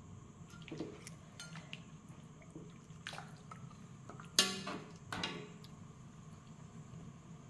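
Metal spatula stirring a wok of chicken in coconut-milk sauce: soft wet stirring with a few light scrapes and knocks of the spatula against the wok, the loudest clank about four and a half seconds in.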